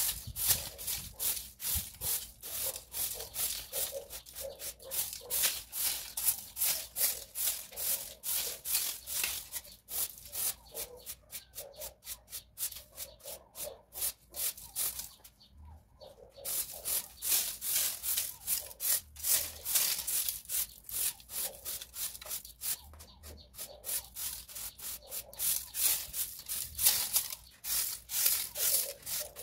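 A broom sweeping a hard floor: a brisk, even rhythm of scratchy strokes, about two to three a second, with a brief pause about halfway through.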